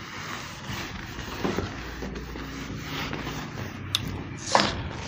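Whiteboard duster rubbing and wiping across a whiteboard, with a couple of sharp knocks near the end.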